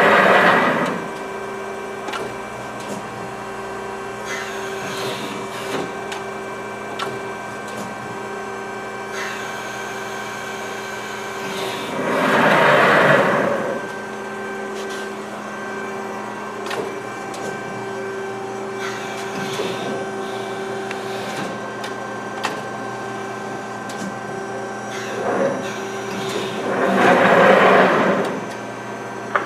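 Amada HFB-125 hydraulic press brake cycling: a steady hum from its hydraulic pump, with a louder rushing swell three times, about 13 seconds apart, as the ram strokes. The hydraulics sound good and healthy to the seller.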